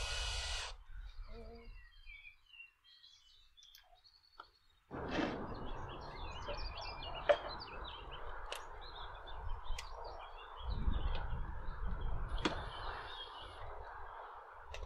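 A power tool runs briefly and stops at the very start. Then small birds chirp and twitter, over a steady outdoor background noise that comes in suddenly about five seconds in.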